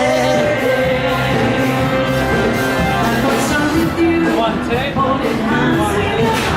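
Pop-rock music with a singer's melody over a steady bass line.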